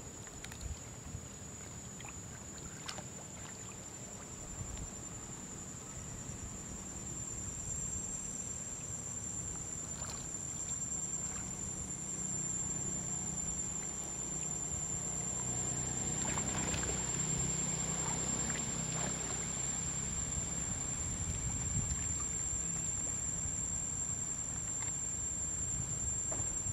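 Water sloshing and lapping as macaques swim and tussle in a pool, with a few faint splashes. Under it runs a steady high-pitched insect drone, and a low rumble slowly grows louder.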